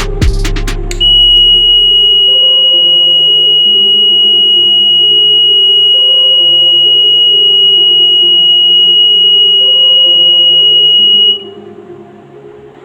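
Piezo buzzer of an NE555-based power restoration alarm sounding a loud, steady, high-pitched continuous tone for about ten seconds, then cutting off suddenly; the alarm signals that mains power has been restored. Background music plays underneath.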